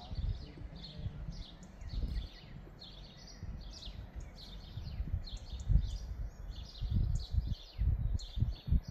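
Small songbirds chirping and twittering continuously in quick repeated phrases, over irregular low gusts of wind buffeting the microphone that grow stronger and choppier in the second half.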